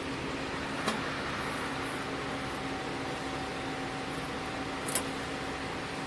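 Steady hum and whir of braiding-workshop machinery, with two short sharp clicks, one about a second in and one about five seconds in.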